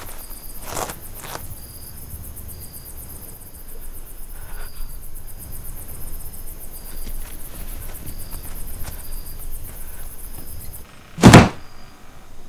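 Crickets chirping in a fast, steady pulse over a low rumble, cutting off abruptly about eleven seconds in; a moment later comes a single loud, heavy thump.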